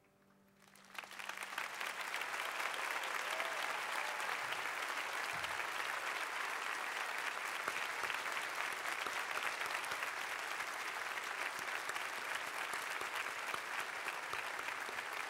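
A grand piano's last chord fades out. About a second in, an audience breaks into applause that goes on steadily.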